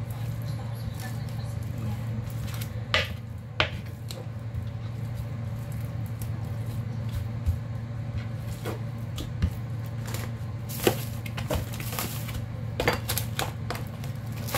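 Kitchen knife clicking and knocking against a plastic cutting board while raw chicken thighs are skinned, a handful of sharp taps spread irregularly over a steady low hum.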